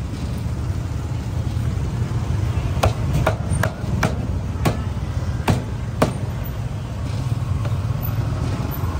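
A meat cleaver chopping on a chopping block, seven sharp strokes between about three and six seconds in, over a steady low rumble of street traffic.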